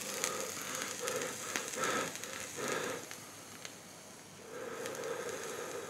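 Breathy exhaling of e-cigarette vapour after a draw: several soft puffs of breath over the first three seconds, then a longer, steadier exhale near the end.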